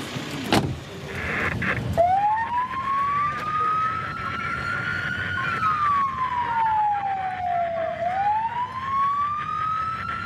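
Ambulance siren starting about two seconds in and wailing in a slow cycle: rising for about three seconds, falling for about two and a half, then rising again. A single sharp knock sounds about half a second in, before the siren.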